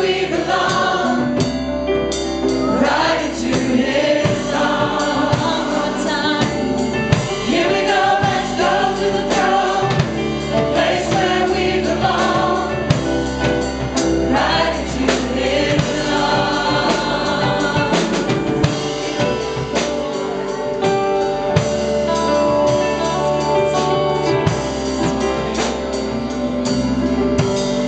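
Live church worship music: a choir and congregation singing a gospel-style worship song with a band, drums striking throughout.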